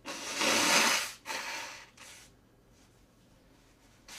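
A person blowing her nose hard into a tissue: one long blow of about a second, then a shorter second blow and a brief third.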